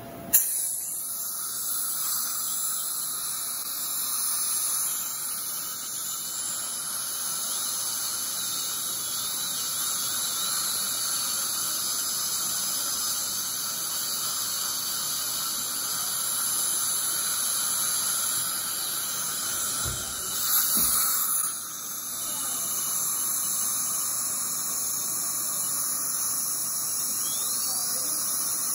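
High-speed dental handpiece running steadily as it cuts down a molar for a crown, with the suction hissing alongside. It starts suddenly just after the start and breaks off briefly about two-thirds of the way through before running on.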